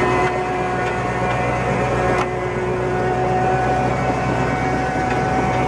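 A heavy field drainage machine running steadily under load: a continuous engine drone with a steady whine held on top.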